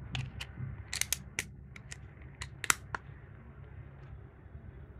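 Sharp plastic clicks and taps from a Canon pinch-type lens cap being clipped onto an EF-S 55-250mm zoom lens as the lens is handled: about a dozen clicks in the first three seconds, the loudest a little before three seconds in.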